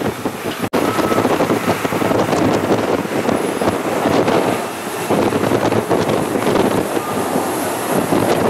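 Wind buffeting the microphone, a steady fluttering rush, with a brief dropout less than a second in.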